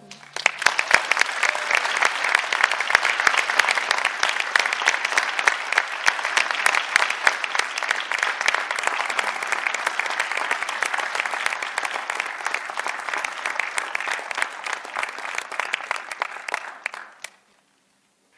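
Audience applauding, a dense steady clatter of many hands clapping that fades out quickly near the end.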